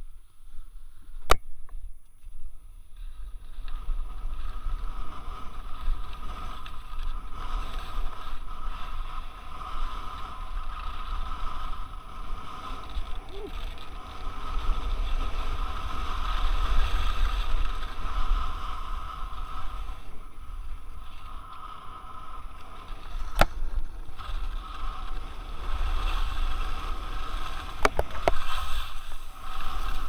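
Skis sliding and scraping down wind-packed snow, with wind rumbling on the microphone; it starts about three seconds in, after a quieter moment. A few sharp clicks stand out, one near the start and two near the end.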